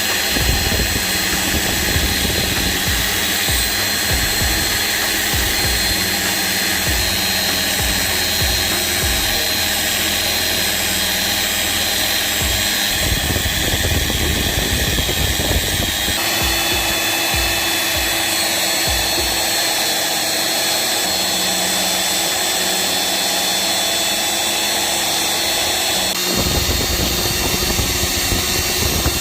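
A power tool running steadily, its tone changing abruptly about halfway through and again near the end.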